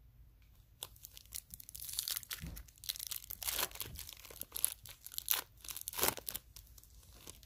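Foil wrapper of a Topps baseball card pack being torn open and crinkled: a dense run of crackling tears starting about a second in.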